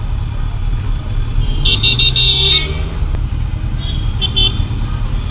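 A motorcycle engine and wind rumble steadily under way. A vehicle horn sounds for about a second, about two seconds in, then gives two short toots near four seconds in.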